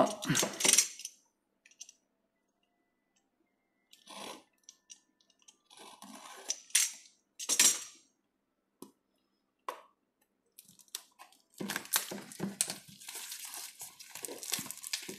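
Hands opening a small cardboard figure box wrapped in thin clear plastic: a few scattered scrapes and taps, then over the last few seconds a busier crinkling and rustling of the plastic wrap.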